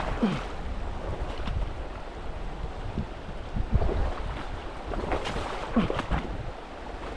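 Rushing water of a mountain trout stream, with wind buffeting the microphone as a low rumble.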